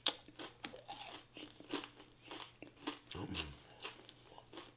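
Close-miked chewing and crunching of crispy fried food: a string of short crisp crunches and mouth clicks. A brief low hum from the eater's voice comes about three seconds in.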